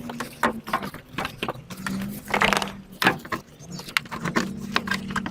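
Hand tools and metal parts clinking and tapping in short irregular clicks while an engine mount is refitted, over a steady low hum.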